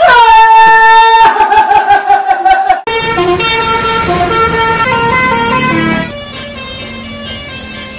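Telolet bus horn, an Indonesian multi-tone musical horn, sounding two long loud notes in the first three seconds, then a run of shorter, softer notes that drop lower after about six seconds.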